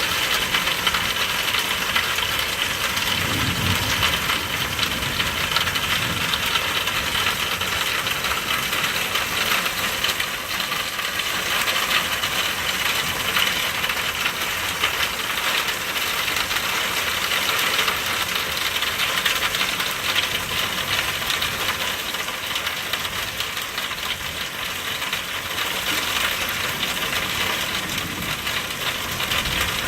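Steady rain falling, a dense patter of drops on hard surfaces, with a faint low rumble about three seconds in.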